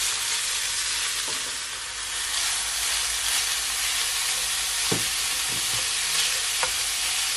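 Raw ground beef sizzling steadily in hot oil with sautéed onion and garlic in a pan. A wooden spoon pushes it around, making a few short taps.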